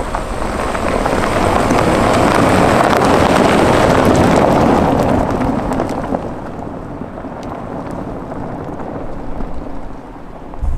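A Rolls-Royce Cullinan driving on a rough track, its tyre and wind noise swelling to a peak about three or four seconds in and then fading to a lower steady rush.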